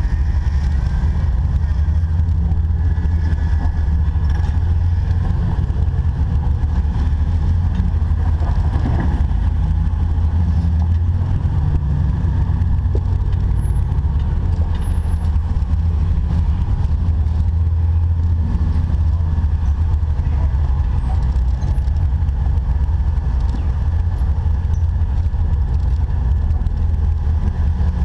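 Jeep engine and drivetrain running steadily off-road, a constant low rumble.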